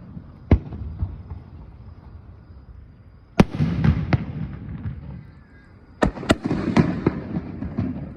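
Aerial fireworks shells bursting: a single sharp bang about half a second in, another loud bang around three and a half seconds followed by rumbling and a second report, then a quick cluster of bangs from about six seconds on.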